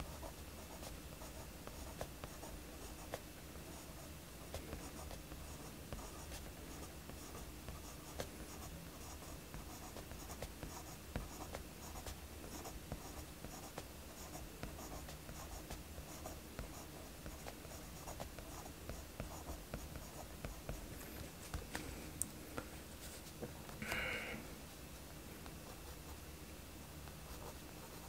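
Mechanical pencil graphite scratching on sketchbook paper in many short strokes and hatching lines, drawing a chain and shading. Near the end there is one brief louder sound.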